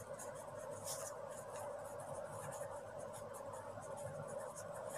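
Pen writing on a ruled paper notebook page: faint, quick, irregular scratches of the pen strokes over a steady faint hum.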